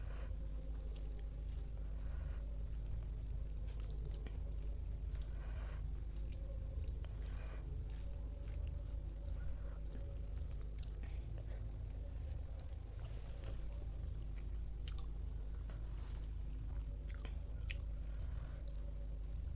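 A person chewing a meal of rice and curry, with many short, wet mouth clicks and smacks scattered throughout. A steady low hum runs underneath.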